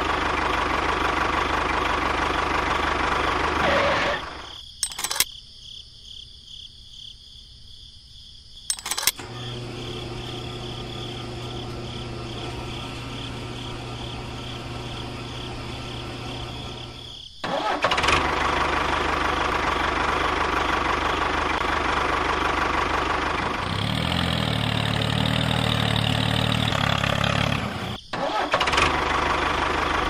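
Miniature tractor's engine running steadily, then dropping away for a few seconds with two sharp clicks. A steady low hum follows while the toy fuel pump fills the tank, and the engine sound returns about midway, changing to a pulsing pattern for a few seconds near the end.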